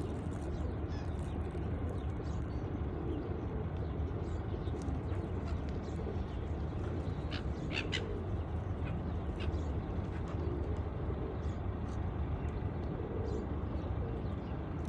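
Gulls and pigeons calling now and then, with a few short calls clustered about halfway through, over a steady low rumble.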